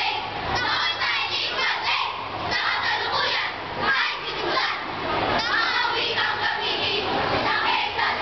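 A large group of children reciting a Filipino poem together in unison: sabayang pagbigkas, choral speaking.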